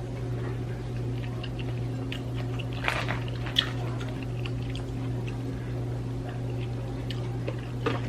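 Close-up wet eating sounds of a butter-sauced shrimp boil: chewing and squishing, with small crackles of shell and a louder wet crackle about three seconds in. A steady low hum sits underneath.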